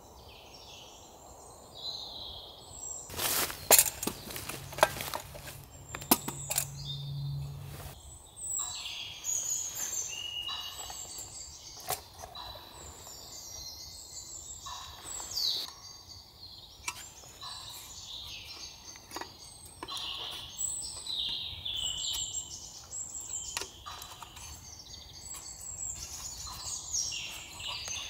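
Woodland songbirds singing and calling at dusk: a busy mix of short high chirps and warbles that runs through. A few sharp clicks and knocks about three to seven seconds in stand out as the loudest sounds.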